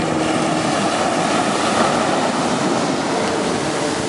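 Ocean waves washing ashore, a steady rush of surf. An engine's low hum fades out within the first second.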